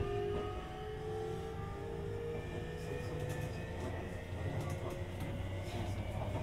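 Sotetsu 20000 series electric train heard from inside the car: the Hitachi SiC-VVVF inverter whines in several tones that rise slowly in pitch as the train picks up speed, over a steady rumble of wheels on rail.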